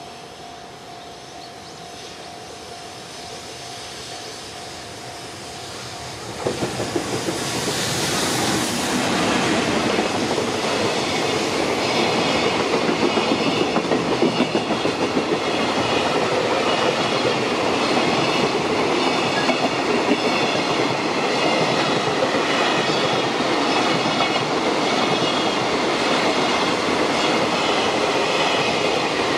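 Long JR Freight container train passing close by. Its electric locomotive's approach grows louder for about six seconds, then it arrives with a sudden loud rush. A steady rattle and clickety-clack of the container wagons' wheels over the rail joints follows.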